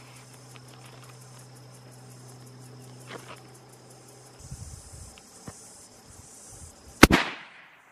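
A single rifle shot from a .375 CheyTac Improved, fired near the end: one sharp, very loud crack with a short ringing tail. Before it, a steady buzz of insects.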